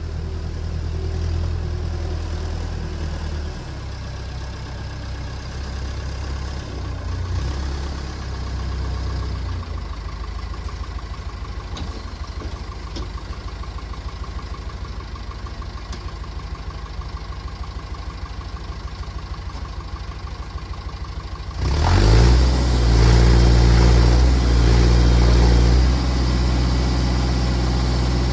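Massey Ferguson backhoe's engine running steadily at low revs, then revving up sharply about three-quarters of the way through and running loud for a few seconds before easing off a little.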